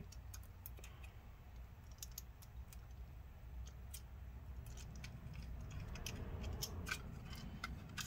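Faint, scattered small clicks and ticks from small screws and a screwdriver being handled as the screws go back into the drive bracket, with soft handling rumble growing toward the end.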